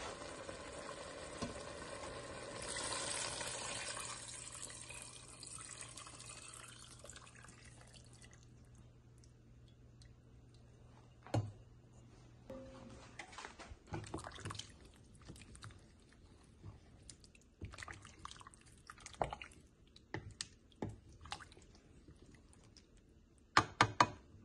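Broth pouring from a glass bowl into a steel pot of chopped vegetables, splashing for several seconds and fading out. Then scattered light knocks and clinks against the pot, with a quick run of sharp knocks near the end.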